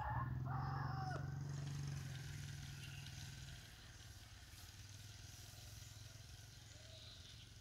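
Motorcycle engine running steadily as the bike rides away, fading out over the first three to four seconds.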